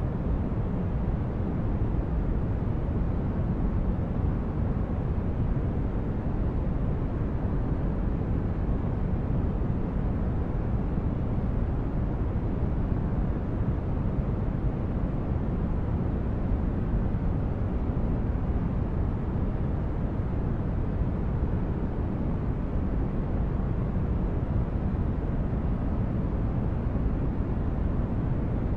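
Continuous white-noise sleep track: a steady, deep rushing noise, heavy in the bass and dull on top, with no change in level or pitch.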